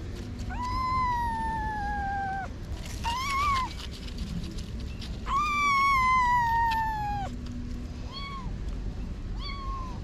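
A kitten of about six to eight weeks meowing: two long drawn-out meows of about two seconds each that sink slightly in pitch, a short rising-and-falling meow between them, and two brief meows near the end.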